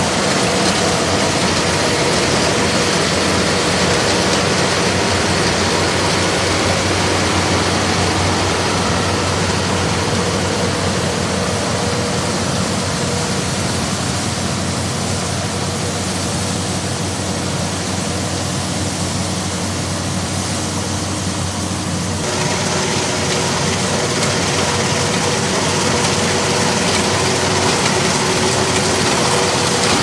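Kubota WRH1200A Agri Robo combine harvester running steadily as it cuts grain, a constant engine and machinery drone with a steady low hum. The sound shifts abruptly about three-quarters of the way through.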